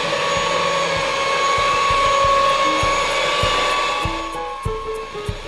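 Electric hand mixer running in thick cake batter, a steady whine that fades about four seconds in. Background music with a regular beat runs throughout, and its melody comes forward as the mixer dies away.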